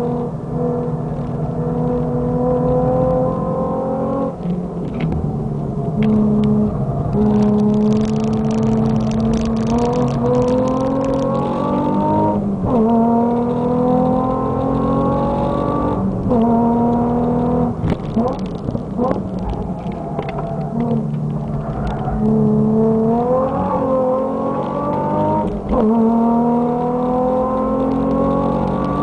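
Nissan 350Z's 3.5-litre V6 with an Amuse full exhaust, heard from inside the car under hard acceleration on track: the engine note climbs steadily through each gear, then drops sharply at each gear change, about five times.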